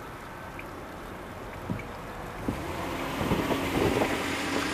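DD13-type diesel locomotive approaching slowly, its engine running, with wheel clanks over rail joints and points that grow louder from about halfway through; a steady rush of wind noise underneath.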